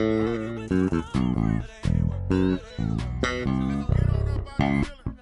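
Fodera Emperor Standard 5 five-string electric bass played solo: a phrase of plucked notes with some pitch bends, in short bursts separated by brief gaps.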